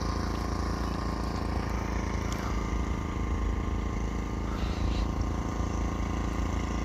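A steady low engine hum with a rumble underneath, even throughout.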